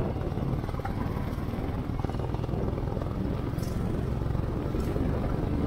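Motorcycle engine running steadily while the bike is ridden along a road, mixed with wind noise on the microphone.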